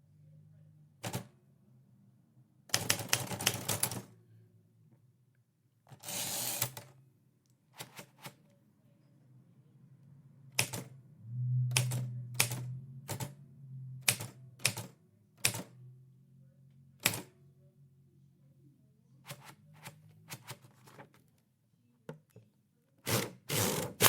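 Typewriter keys being struck at an uneven pace: single keystrokes spaced a second or so apart, broken by a few quick runs of strokes, one about three seconds in and another near the end, over a faint steady low hum.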